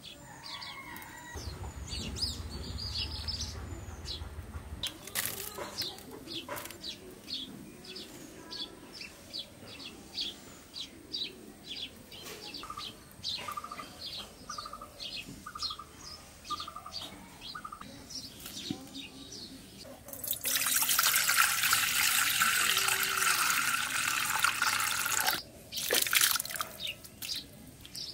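Water poured into a steel bowl of small cleaned prawns, running for about five seconds a little past two-thirds of the way through, then a brief second splash. Birds chirp throughout.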